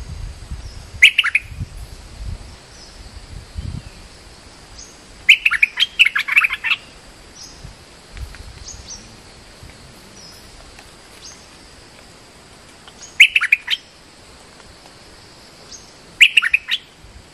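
Stripe-throated bulbuls singing in four short phrases of quick notes; the second phrase, about five seconds in, is the longest.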